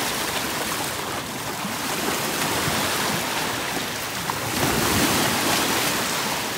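Small surf waves washing in over a shallow beach, with water sloshing around wading legs; a little louder from about four and a half seconds in.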